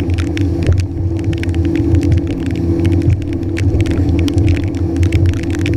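Yamaha FXHO WaveRunner jet ski engine running steadily under way, a loud even drone with many short sharp crackles over it.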